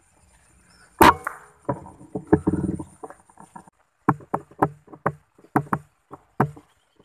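A single rifle shot about a second in. A couple of seconds of rustling and clattering follow, then a run of about eight sharp knocks spaced a third to half a second apart.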